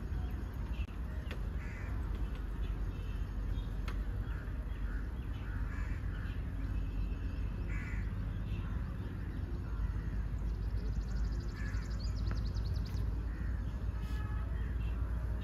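Outdoor ambience: scattered short bird calls, with a brief fast, high trill about eleven seconds in, over a steady low rumble.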